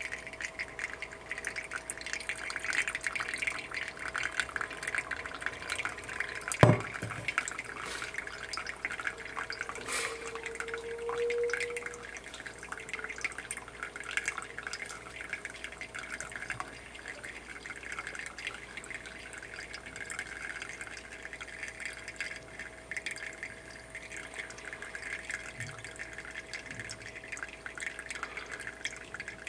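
A thin stream of hot water is poured from a kettle onto coffee grounds in a flannel cloth drip filter, making a steady light trickle. A single sharp knock sounds about seven seconds in.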